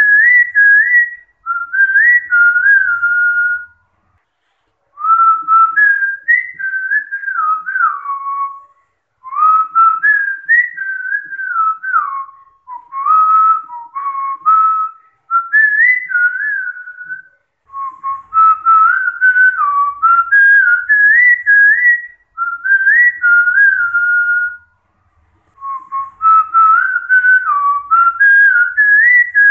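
A person whistling a melody by mouth, a single clear line that steps from note to note with a slight waver, in phrases of a few seconds separated by short pauses for breath.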